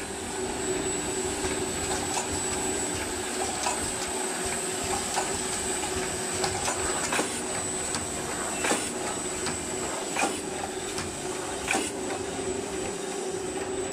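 Automatic can seaming machine running: a steady hum with a thin high whine, and sharp clacks every second or two as cans are fed through the star wheel and seamed.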